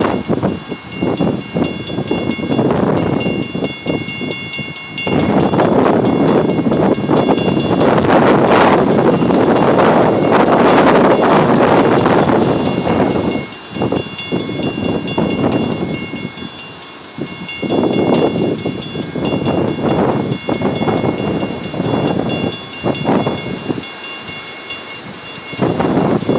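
Empty unit freight train rolling past at restricted speed behind diesel locomotives, with strong wind gusts buffeting the microphone in swelling surges that rise and fall every few seconds. The loudest surge comes about a third of the way in.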